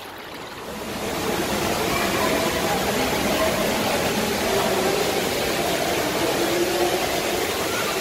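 Indoor swimming pool ambience: a steady rush of water with faint voices in the background.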